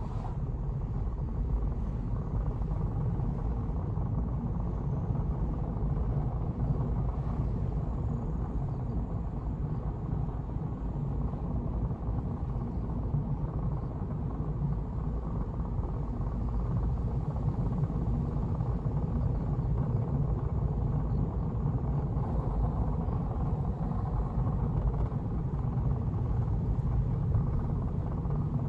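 A car driving along a road: a steady low rumble of road and engine noise, with no sudden changes.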